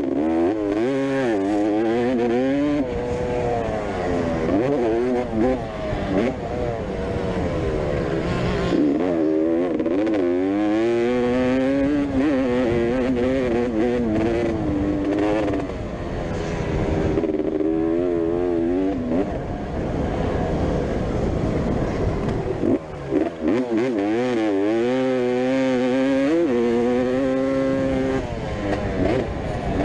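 Motocross bike engines racing on a dirt track, rising and falling in pitch over and over as the riders open the throttle and back off, with a few brief lulls between.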